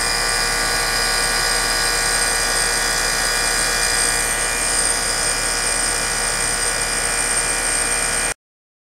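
Air-conditioning condenser unit running, a steady electrical hum and whine from the compressor and fan motor, now on its replacement 40 µF capacitor. The sound cuts off abruptly near the end.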